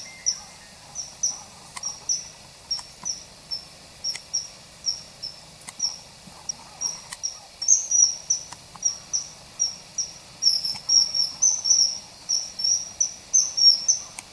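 Common kingfisher calling: a long series of short, shrill, high-pitched notes, two or three a second, coming faster and louder in the second half.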